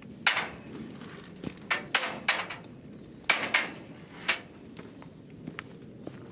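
Hammer blows on metal, likely the greenhouse's steel frame pipes, about seven ringing strikes in quick irregular groups.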